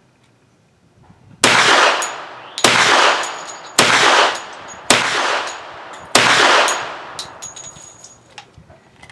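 Hi-Point 1095 Yeti 10mm carbine firing five shots of 200-grain hard-cast bear load in quick succession, about one every 1.2 seconds, each shot followed by an echoing tail. The rounds feed and fire without a malfunction.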